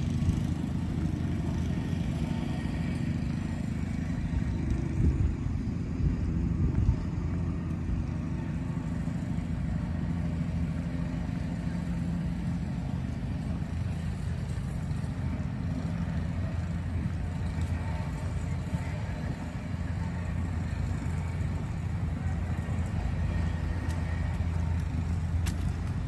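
Steady city road traffic: cars passing on the street, a continuous low rumble that swells briefly about five to seven seconds in.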